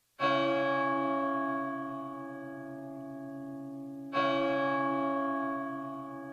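Church bell struck twice, about four seconds apart. Each stroke starts sharply and rings on with a slow fade.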